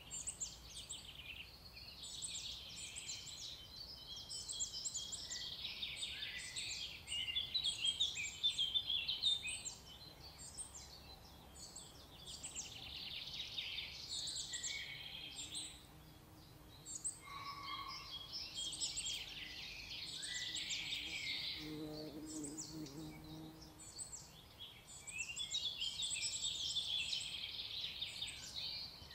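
Songbirds singing in a woodland, with many short, high chirping phrases repeated in bursts that pause every few seconds.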